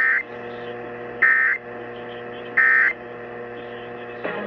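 Emergency Alert System end-of-message signal: three short digital data bursts about 1.3 seconds apart, the code that closes an EAS test, over a low steady broadcast hum. Near the end, the station's programme audio cuts back in.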